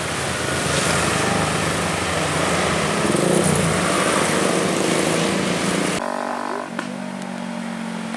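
A bus passing close on the road, its engine and tyre noise running loud and steady. About six seconds in, the sound cuts abruptly to a quieter, steady engine drone.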